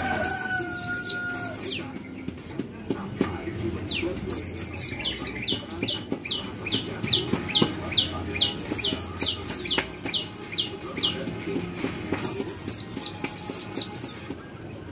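Pleci (white-eye) giving its rapid 'cit cit' call: quick clusters of thin, high, downward-slurred chips, with evenly spaced single chips at about two to three a second between the clusters.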